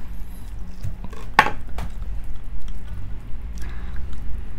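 Cutlery clinking and scraping against a plate, with one sharp clink about a second and a half in.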